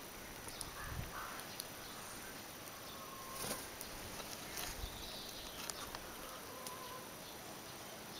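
Faint outdoor ambience with scattered light clicks and a few short, soft calls from hens foraging on the ground.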